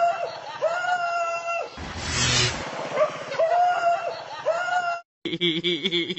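A dog crying out in a series of high, whining cries, each rising and then falling, with a harsher noisy burst between them. The sound cuts off abruptly about five seconds in, and a different recording with steady tones follows.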